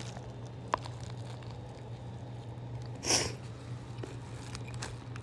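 A person chewing a bite of a toasted sub sandwich, over a steady low hum. There is a sharp click just under a second in and a short noisy burst about three seconds in.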